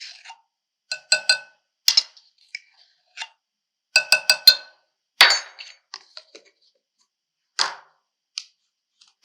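Measuring spoon clinking and tapping against a container while baking powder is scooped out: a string of sharp, briefly ringing clinks, with a short scrape about five seconds in.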